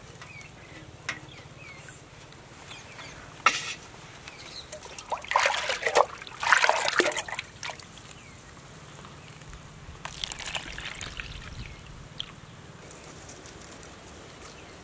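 Watermelon juice trickling and splashing as it is poured from a steel bowl into a folded palmyra-leaf cup, loudest in two short pours about five to seven seconds in.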